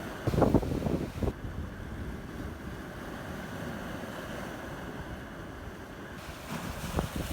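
Strong wind buffeting the microphone, a low rumble with irregular gusts, the strongest about half a second in and again near the end.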